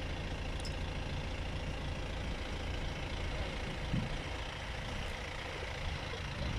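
A vehicle's engine idling, a steady low rumble, with one short low sound about four seconds in.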